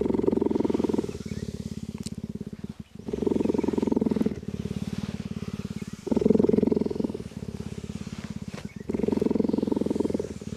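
Cheetah purring steadily, a fast low rumbling pulse that alternates between louder and softer phases, the louder ones coming about every three seconds, while it lies relaxed being brushed.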